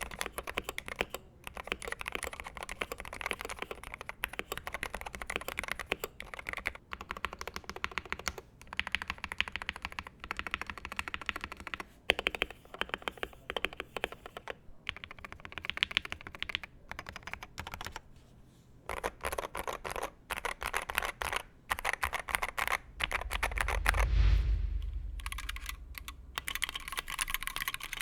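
Continuous typing on a Wooting 60HE hall-effect keyboard, case foam removed, with dense runs of key clicks and brief pauses, first in the stock ABS plastic tray-mount case. About three quarters of the way through, a low rumbling swell rises and fades, after which the typing continues in the Tofu60 aluminum case.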